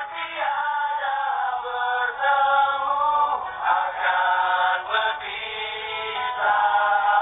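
A group of men singing a song together.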